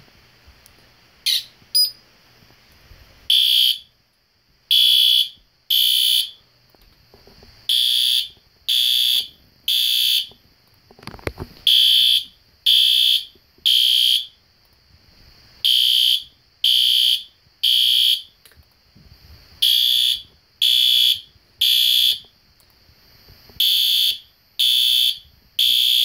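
System Sensor Spectralert Advance PC2W ceiling-mount horn strobe sounding the temporal-three fire alarm code at its low-volume setting: short, high-pitched beeps in groups of three about a second apart, each group followed by a pause, repeating every four seconds. Quite loud. Two sharp clicks come about a second and a half in, before the horn starts.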